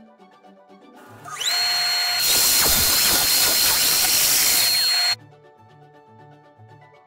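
Small benchtop table saw spinning up with a rising whine, then cutting through a thin wooden sheet, the steady motor whine over the cutting noise until the sound cuts off abruptly about five seconds in. Soft background music before and after.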